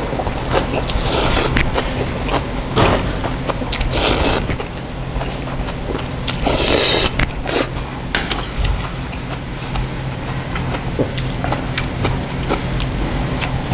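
Banquet noodles in broth being slurped from a bowl in several bursts, the longest about six and a half seconds in, followed by small clicks of chopsticks in the second half. A steady low hum runs underneath.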